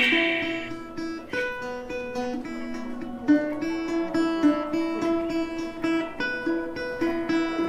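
Balalaika playing a folk tune in plucked and strummed notes, with a hard strum at the very start. A held, stepping low melody line sounds beneath it.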